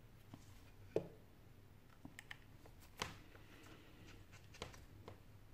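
Small clicks and taps from a precision screwdriver and gloved fingers working on the opened iPhone 6's display connector area. Two sharper clicks stand out, about one and three seconds in, among a few lighter taps.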